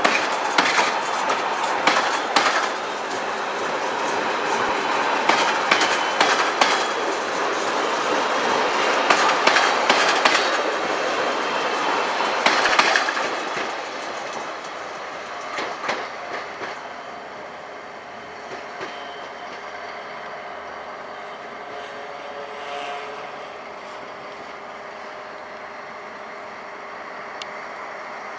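RRR regional coaches rolling past close by, the wheels clicking over rail joints. After about 13 seconds the sound fades as the train draws away.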